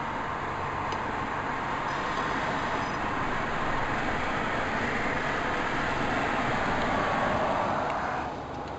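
Road and tyre noise inside a moving car's cabin: a steady rush that swells slightly and then drops in level about eight seconds in.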